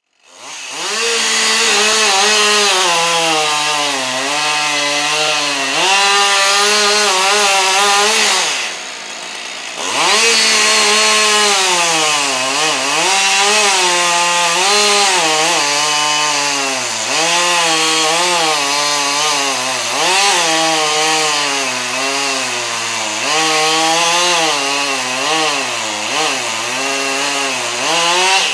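Two-stroke chainsaw running at high revs, its pitch sagging and rising over and over as it cuts through wood. It eases off briefly about nine seconds in, then revs up again.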